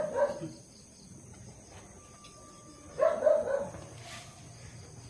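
A dog barking in short runs: a few barks at the start and another run about three seconds in.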